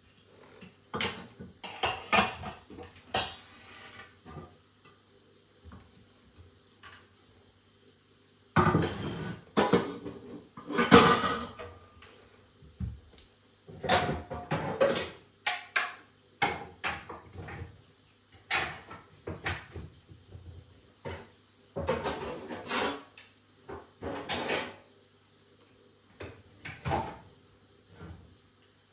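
Dishes, pots and cutlery being handled at a kitchen counter and cabinets: irregular clinks, clatters and knocks, with cabinet doors knocking, in uneven clusters that grow loudest about a third of the way in.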